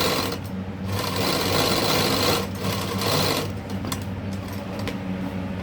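Sewing machine stitching in two runs, the first stopping just after the start and the second lasting from about a second in to about three and a half seconds in. A steady motor hum continues between and after the runs, with a few light clicks near the end.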